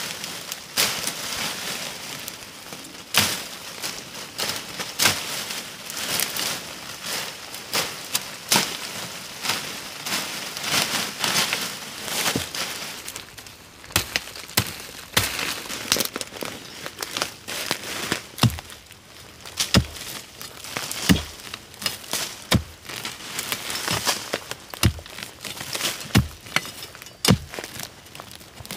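Dry leaves and twigs crackling and rustling as someone pushes through undergrowth and handles the leaf litter. From about two-thirds of the way in comes a run of dull strikes, roughly one a second, as a wooden stick is jabbed into the soil to dig out a burrow.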